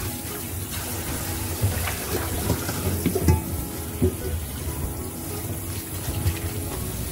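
Kitchen tap running into a stainless steel sink while raw pork lung pieces are rinsed and handled under the stream. A few short knocks come between about one and a half and four seconds in.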